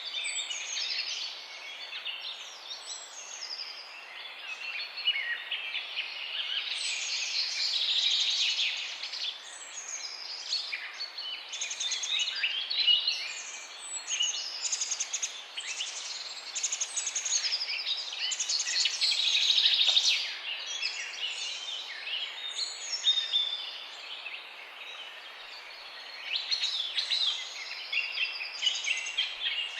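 Several songbirds singing at once in a dense chorus of overlapping chirps, trills and whistles.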